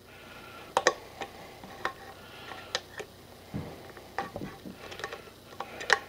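The lever-style can opener of a Leatherman Rebar multi-tool being rocked around the rim of a steel can and cutting the lid. Each stroke gives a sharp metal click, about ten of them at an irregular pace.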